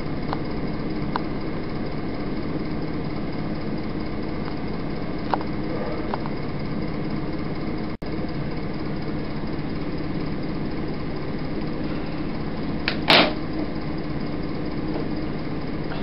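Steady low hum and hiss of an old analogue videotape recording. The sound drops out completely for an instant about eight seconds in, and there is a short burst of noise around thirteen seconds.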